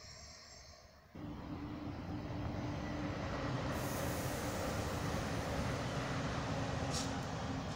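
Electric passenger train approaching on the line, its running noise coming in abruptly about a second in and staying loud, with a steady hum through it and a single sharp click near the end.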